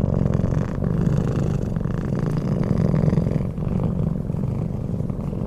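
A domestic cat purring steadily.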